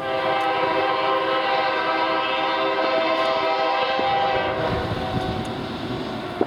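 Locomotive air horn blowing a long, loud chord from the lead unit, a BNSF warbonnet locomotive. About three-quarters of the way through, the horn fades and drops slightly in pitch, and the rumble and clatter of the passing train grow.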